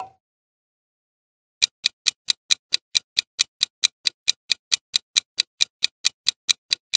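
Countdown-timer clock-tick sound effect: even, sharp ticks, about four to five a second, starting about a second and a half in and running on steadily.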